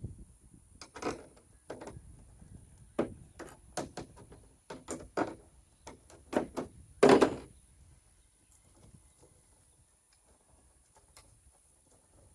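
Irregular knocks and clunks of hand tools and parts as bolts are worked off a car's body panels, the loudest clunk about seven seconds in, then quiet handling noise.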